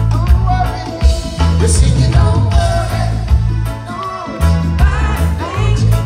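Live reggae band playing, with a heavy bass line, a steady drum beat and a voice singing over them.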